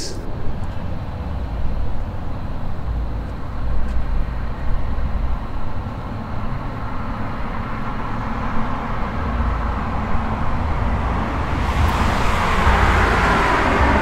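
Street ambience: a steady low rumble of road traffic, with a vehicle coming closer and growing louder near the end.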